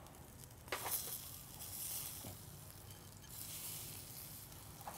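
Nem nướng pork sausage skewers sizzling faintly on a wire rack over charcoal as their fat renders, with a light click about a second in and another near the end.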